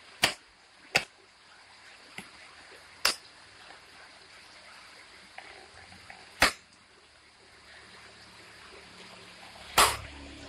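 Plastic parts of a kit toy electric bicycle being handled and fitted together: five sharp clicks and knocks at uneven intervals, with a few fainter taps between them, the last one near the end a little longer.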